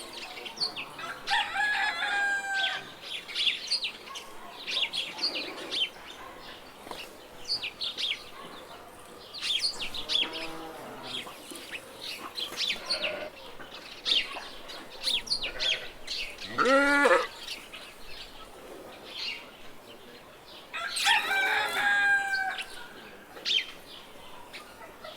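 Farmyard birds: small birds chirping constantly, with chickens calling and a rooster crowing several times; the loudest crow comes a little past the middle.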